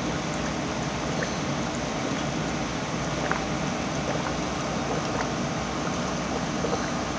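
Aquarium filter running: a steady rush of moving water with scattered small pops and ticks of bubbles.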